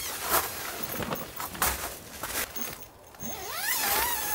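Fabric rustling and swishing as a backpack and puffy jacket are handled and shouldered, then near the end a dog's high, wavering whine that rises and falls.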